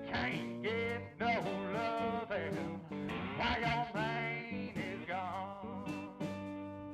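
Background blues music with guitar.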